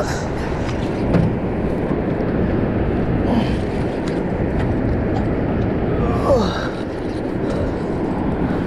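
Wind buffeting the microphone, a steady low rush with no rhythm, with a faint falling tone about six seconds in.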